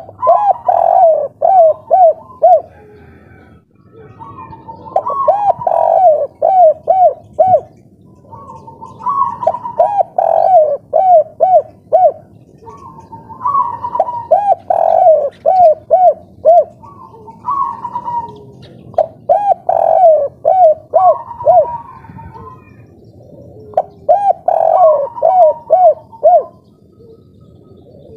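Spotted dove singing its cooing song of the type hobbyists call 'kuk 3'. Six phrases come about every four to five seconds, each a short higher opening note followed by a quick run of four or five rounded coos.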